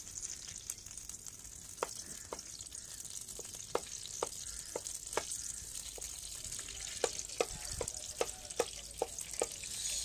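Ghee sizzling as it heats in a metal karahi over a wood fire, with a steady high hiss. Irregular sharp clicks and knocks come from a wooden spoon striking the pan as it is stirred, more often in the second half.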